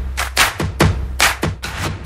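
Background music with a steady, quick drum beat over a low bass line.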